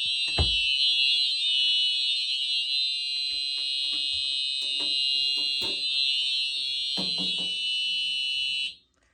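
Simplex TrueAlert fire alarm horn sounding continuously, a steady high-pitched blare without breaks, with faint knocks and a thud under it. It cuts off suddenly near the end as the system is silenced.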